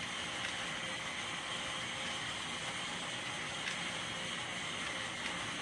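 HO scale model freight cars rolling along the track, a steady rolling hiss from metal wheels on rail with a few faint clicks.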